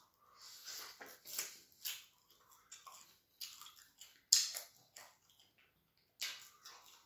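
Close-miked eating sounds of a man chewing a mouthful of fufu and chicken in soup: wet chewing and lip smacks in irregular short bursts, with one sharp click a little after four seconds in.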